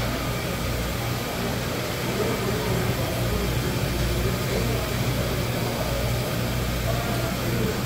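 Steady busy street and market ambience: a constant low rumbling hum, like traffic or machinery, with faint distant voices.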